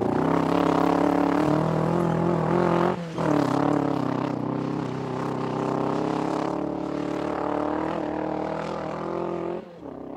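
Fiat Cinquecento rally car's engine running hard at steady high revs, heard onboard, with a brief break about three seconds in and the revs falling off near the end.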